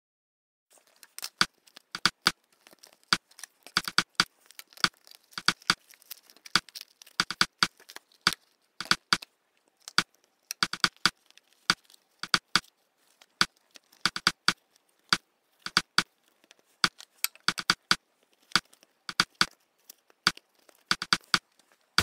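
Handling of a home-made phone case: sharp, irregular clicks and taps, about one to three a second, starting about a second in.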